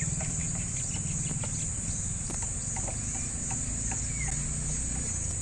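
Insects chirring in a steady, high-pitched drone, over a low steady hum and a few faint ticks.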